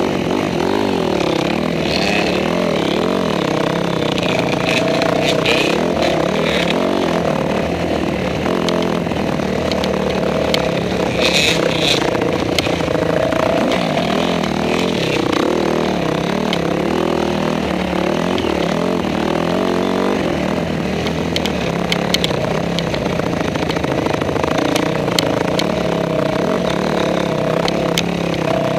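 Honda CRF250R single-cylinder four-stroke dirt bike engine riding along, its pitch rising and falling as the throttle opens and closes. A few sharp knocks and rattles come through, the loudest about eleven seconds in.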